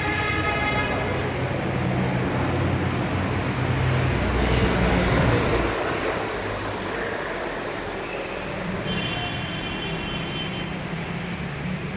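A motor vehicle's engine running amid traffic noise. The low hum swells about four to six seconds in, and a short high-pitched tone sounds about nine seconds in.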